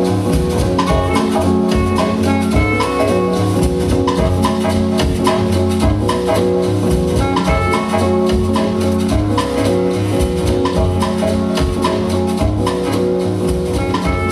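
Instrumental dance music with a steady drum beat and melodic instruments, played over loudspeakers.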